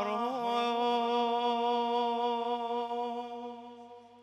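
A radood's male voice chanting a Shia latmiya, singing one word and then holding a single long note that fades away near the end.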